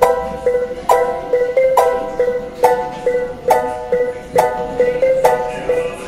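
Background music: a light plucked-string tune with a repeated note struck about once a second.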